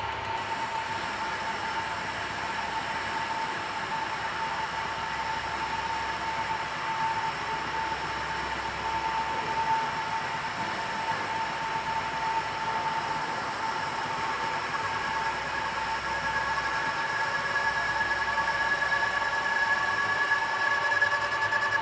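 Lathe running while a taper is turned on the workpiece, the cutting tool fed through the compound slide: a steady machine noise with a high whine, and a second, higher whine joining about two-thirds of the way through.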